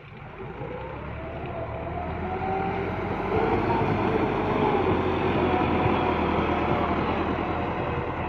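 Massey Ferguson 385 tractor's diesel engine running steadily under load while its front blade pushes soil. It grows louder over the first few seconds and steps up about three seconds in.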